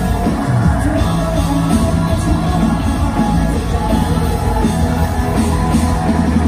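Live rock band playing loud through a concert hall PA, with electric guitars, bass and drums, heard from among the audience.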